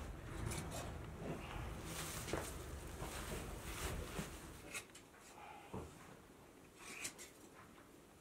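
Rustling and rubbing of a woven plastic sack as sheared sheep's wool is stuffed into it and the sack is hoisted upright, over a low rumble that fades out about halfway through. Quieter after that, with a few short sharp clicks.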